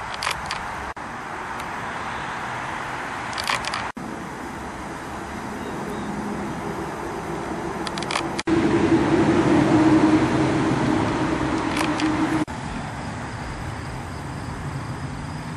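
Outdoor background of steady road traffic and wind noise, broken off by several short dropouts. About halfway through there is a louder steady low hum that lasts about four seconds.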